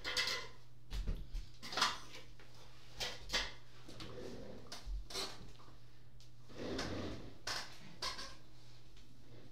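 Scattered knocks, clicks and rustling from someone moving about at a desk and handling things close to the microphone, over a steady low hum.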